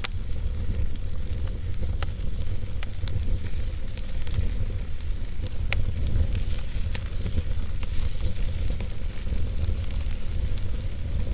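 Wood fire crackling in a fireplace: many small sharp pops and snaps, irregularly spaced, over a steady low rumble.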